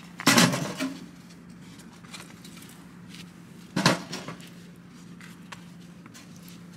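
Split firewood pieces being laid into the metal firebox of a portable wood-burning tent stove: two clattering knocks of wood against metal, one just after the start and one about three and a half seconds later.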